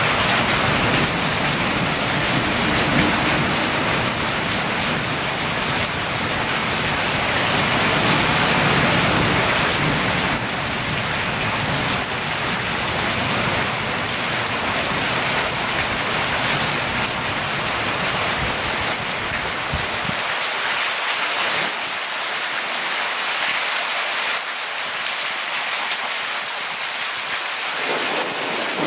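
Heavy rain pouring steadily in a thunderstorm, with thunder rumbling low underneath that dies away about two thirds of the way through. A fresh rumble starts right at the end.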